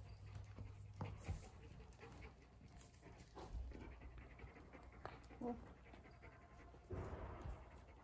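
A horse walking on soft arena dirt: faint, irregular hoof thuds and breathing, with a louder blow of breath about seven seconds in.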